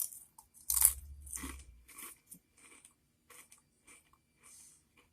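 A Lay's Bacon & Cheddar Potato Skins potato chip is bitten with a loud crunch about a second in. It is then chewed with a run of smaller crunches that grow fainter and further apart.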